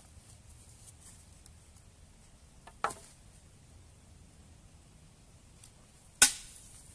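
Dry dead stick being snapped over a knee: a small crack about three seconds in, then a sharp, loud snap near the end.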